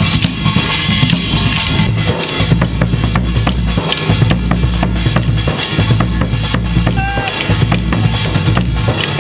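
Procession band drumming: a bass drum and snare-like drums beating a fast, dense rhythm.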